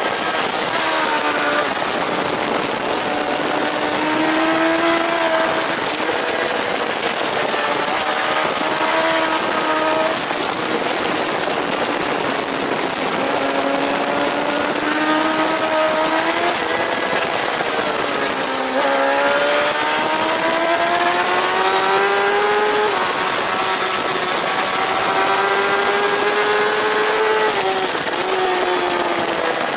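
JSB1000 superbike engine heard at race speed from an onboard camera, with constant wind rush over it. The engine note sinks as the bike slows for a corner, then climbs hard through the gears, dropping sharply at each upshift in the second half.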